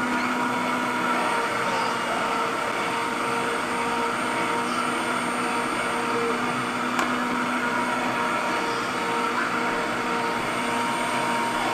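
Electric meat grinder's motor running with a steady hum under load, forcing kibbeh dough of soaked bulgur and lean ground veal through the mincing plate.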